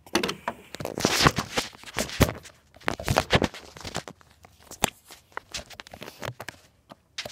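Handheld camera being carried and swung about: irregular knocks, clicks and rustling from handling and footsteps.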